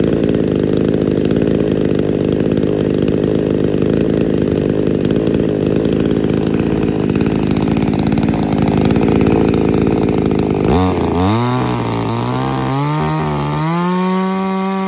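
Off-brand Chinese two-stroke chainsaw running, with no cut being made. For most of the time it runs rough and low. About eleven seconds in, the revs climb in a few steps and then hold at a steady high pitch.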